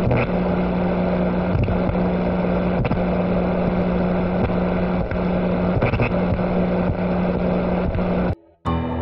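Loud, steady droning noise with a constant low hum, broken by short dips every second or so; it cuts off suddenly near the end, and ambient music starts right after.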